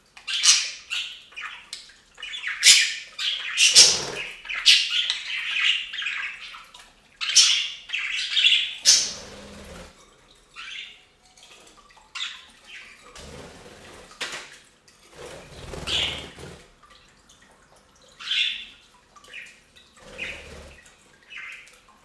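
Budgies chirping and squawking in quick, chattering calls, busiest in the first half, then sparser, scattered chirps.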